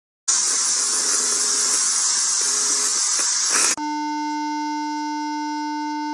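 Loud TV static hiss for about three and a half seconds, then an abrupt switch to a steady electronic test-pattern tone of the kind that plays over colour bars.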